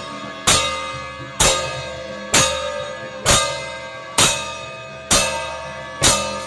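Bronze gong (ghanta) beaten at a steady pace, about one stroke a second, seven strokes in all, each ringing on with a shimmering metallic tone until the next one lands.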